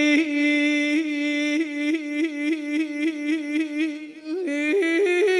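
A man singing unaccompanied, holding one long note on a wordless vowel, ornamented with rapid trill-like wavers. About four seconds in he takes a brief breath and comes back on a slightly higher held note.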